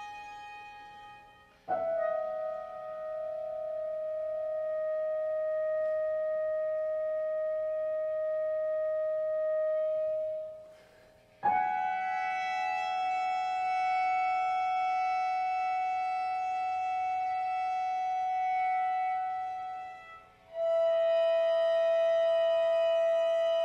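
Contemporary chamber music for violin, bass clarinet and piano: long held notes, rich in overtones. A new sound sets in with a sharp attack about two seconds in, again a little past halfway after a brief fade, and the pitch shifts to a new held note near the end.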